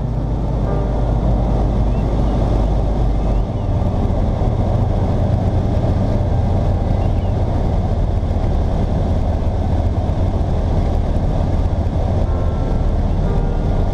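Roland Z 602 light aircraft's propeller engine heard from inside the cockpit on final approach, a steady drone mixed with airflow noise. The engine note changes about three and a half seconds in.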